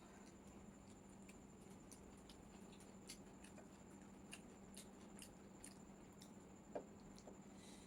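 Faint eating sounds: quiet chewing of chow mein with a few small, sharp clicks scattered through, the loudest one near the end.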